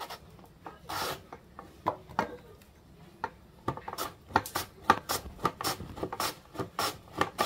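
Raw potato being pushed over a wooden julienne slicer's metal blade, each stroke a short rasping scrape. A few spaced strokes at first, then quickening to about three strokes a second from a little past halfway.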